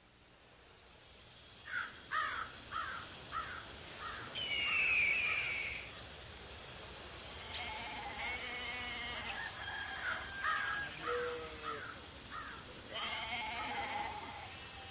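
Countryside ambience fading in: a steady high-pitched insect drone with birds calling over it, in runs of short repeated chirps and a few longer warbling calls.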